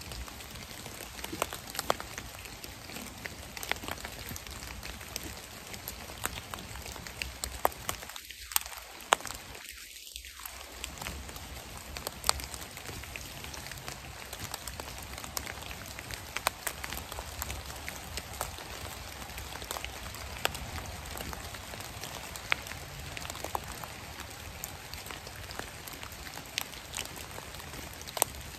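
Light rain falling on dry leaf litter: a steady hiss with scattered sharp ticks of single drops at irregular moments. The hiss dips out briefly twice, about eight and ten seconds in.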